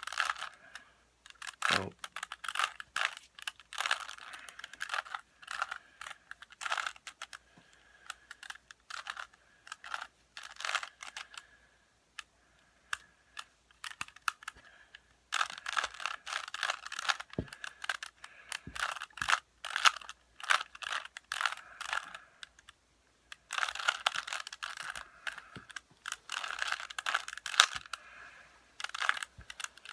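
Rubik's cube being turned by hand: quick runs of plastic clicks as its layers twist, stopping twice for a couple of seconds.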